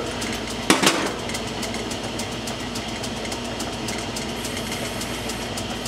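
Metal lathe running with a steady hum and a fast, even ticking while its cutting tool turns down the end of a muzzle brake threaded onto a rifle barrel. One sharp click a little under a second in.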